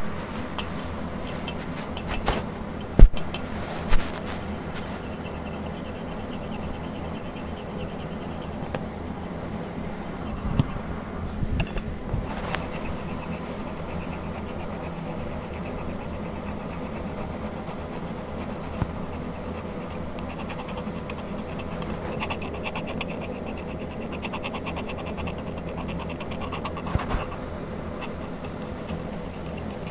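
A pencil scratching on paper in short, quick strokes while sketching, over a steady background hum. A couple of sharp knocks about three and four seconds in, the loudest sounds in the stretch.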